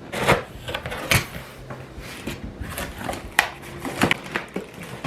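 Cardboard box being opened and handled, with rustling scrapes and several sharp knocks.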